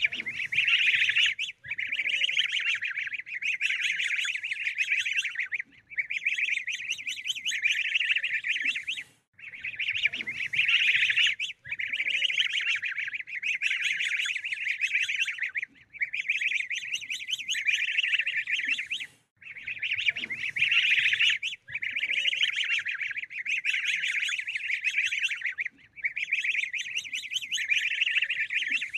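Ducklings peeping: a dense run of rapid, high-pitched peeps, broken by short gaps every few seconds.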